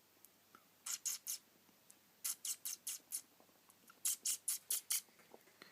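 Budgerigar's feet clicking as it scurries about, in three quick runs of sharp taps, about five a second.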